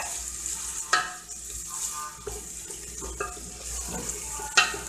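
Chopped onion and garlic sizzling in oil in an aluminium pressure cooker pot, stirred with a wooden spoon. Two sharp knocks of the spoon against the pot, about a second in and near the end.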